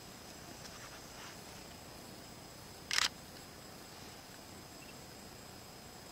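Faint bush ambience with a steady high insect drone, broken about three seconds in by one short, sharp click.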